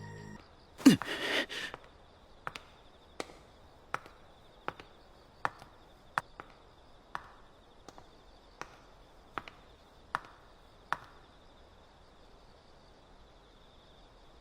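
Anime soundtrack sound effects: a brief whooshing burst about a second in, then about a dozen sharp taps spaced evenly under a second apart, over a faint steady high tone.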